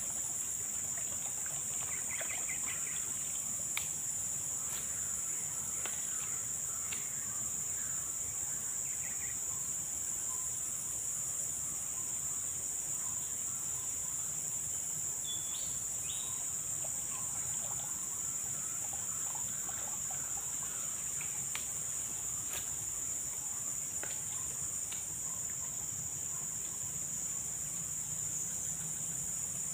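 Steady, high-pitched insect chorus, a constant buzz that never lets up, with a few short chirps and scattered faint clicks over it.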